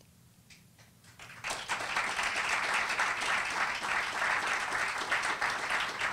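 Audience applause that breaks out about a second and a half in after a short quiet and keeps going steadily.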